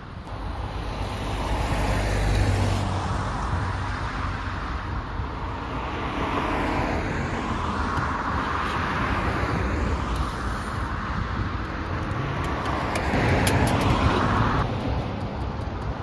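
Road traffic noise: vehicles passing, the sound swelling and fading several times.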